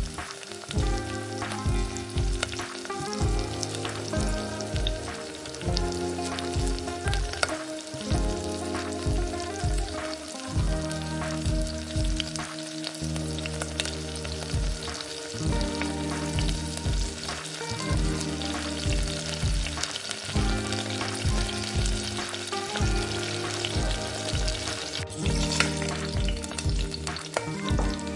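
Noodles and vegetables sizzling in oil in a miniature steel pan over a small flame, with light clicks through the hiss, under background music with steady low chords.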